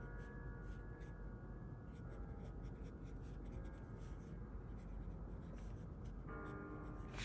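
Black marker scratching on sketchbook paper in many short, quick strokes, under faint steady held tones.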